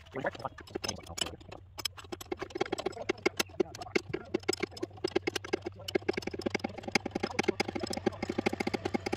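A hand ratchet clicking rapidly as a new sway bar link nut is run down on the front suspension. The clicks are uneven at first, then settle into a fast steady rhythm of about ten a second, over a low steady hum.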